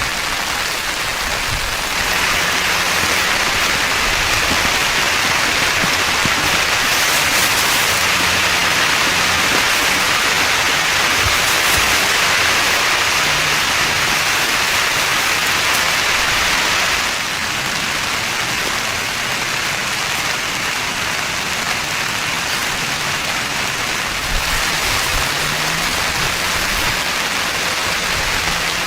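Heavy rain drumming steadily on a tent roof. It grows heavier about two seconds in and eases a little past the middle.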